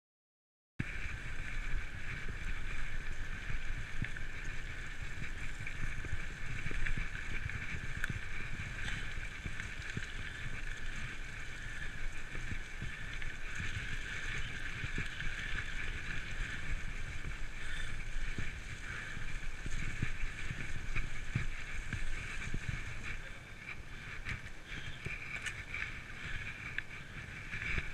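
Full-suspension mountain bike being ridden off-road, heard through an action camera: a steady rush of wind and tyres rolling over a leaf-covered grassy track, with low rumbles and small knocks as the bike goes over bumps. It starts abruptly about a second in.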